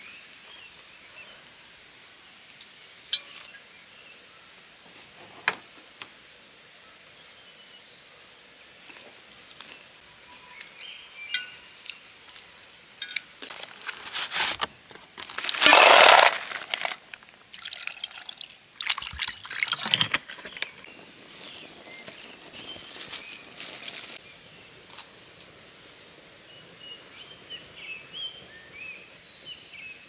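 Clams poured from a plastic bag into a cooking pot: one loud pour about halfway through, lasting a second or two, with scattered rustles and clicks of handling before and after it.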